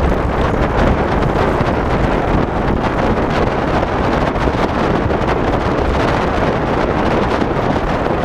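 Steady wind noise buffeting the microphone: a loud, continuous rushing rumble with no change in level.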